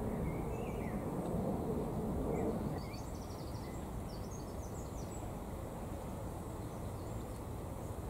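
Outdoor background rumble with a few short, high bird chirps and twitters; the rumble drops a little about three seconds in.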